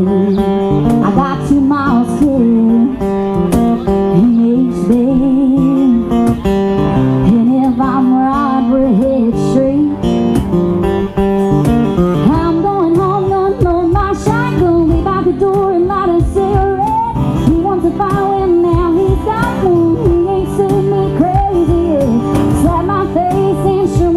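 A woman singing live with strummed acoustic guitar.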